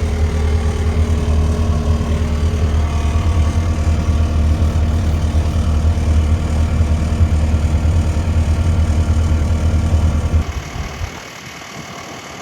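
Kubota SVL75-2 compact track loader's diesel engine running steadily with a low, even drone. About ten and a half seconds in, the running sound stops abruptly, leaving only a much quieter background.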